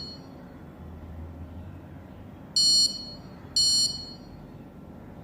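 Buzzer on an Arduino smoke-alarm circuit giving two short, high-pitched beeps about a second apart. It sounds because the MQ-2 gas sensor is detecting smoke.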